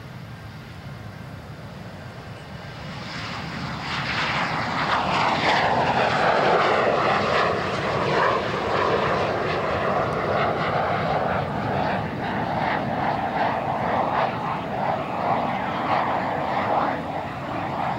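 Kawasaki T-4 jet trainers' twin turbofan engines as the jets take off and climb past, growing loud about three seconds in and staying loud, with a sweeping, swirling tone as they pass.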